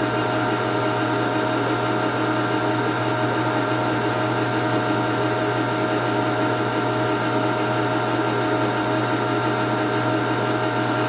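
Metal lathe running at a steady speed with an even mechanical whine, the tool taking a light facing cut of about five thousandths across the muzzle of a rifle barrel to square it up.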